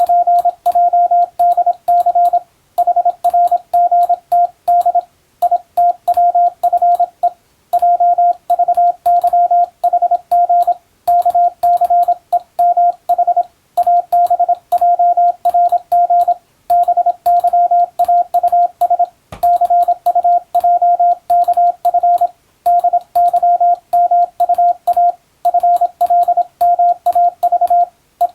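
Morse code (CW) sent as a single steady beep tone, keyed rapidly on and off in dots and dashes. The characters come in quick runs separated by short pauses between words, as in telegram-style receiving practice. Each element starts and stops with a faint click.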